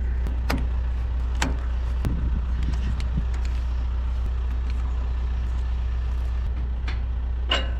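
Tractor engine idling with a steady low hum, with a few sharp knocks, one about half a second in, another a second later and one near the end.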